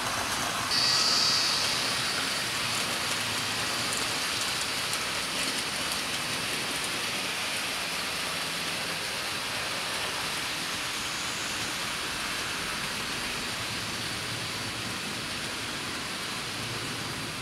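00 gauge model trains running on the track: a steady rolling rush of wheels on rails and motor noise, a little louder with a brief higher hiss about a second in.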